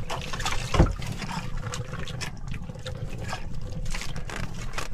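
Water lapping and trickling against a small outrigger boat's hull, with scattered light knocks and one louder thump just under a second in.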